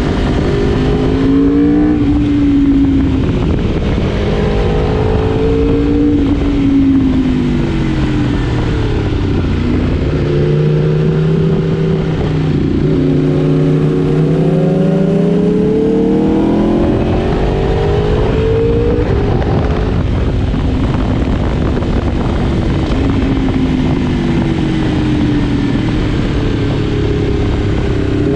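Four-cylinder 1000 cc superbike engine under way, its pitch repeatedly rising as it accelerates and falling as the throttle is closed. There is one long climb through the middle, then steadier running near the end, over a constant rushing noise.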